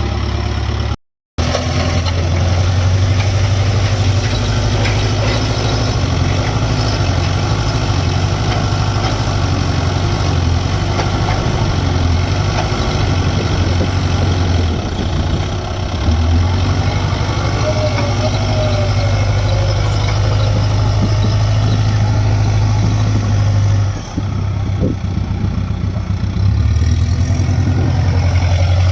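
Heavy diesel engines of a JCB backhoe loader and a tractor running steadily at a low, even speed. The sound drops out completely for a moment about a second in.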